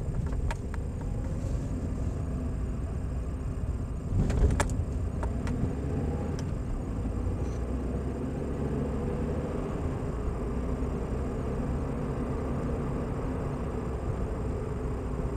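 Car engine and tyre noise heard from inside the cabin as the car picks up speed from walking pace on a rough village road. There are a couple of sharp thumps about four seconds in as the wheels go over the railway level-crossing tracks.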